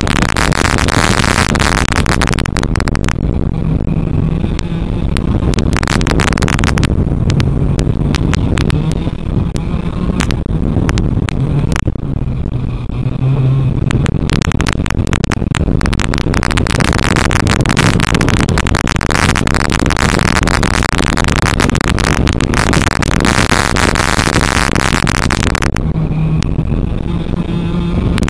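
TaG racing kart's two-stroke engine running hard, heard loud and harsh from the onboard camera, with wind rush on the microphone. The sound swells and eases every few seconds as the kart goes down the straights and lifts through the corners.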